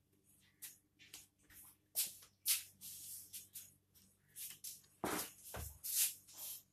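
Irregular short scratchy rustles and clicks of things being handled, with a dull knock about five seconds in.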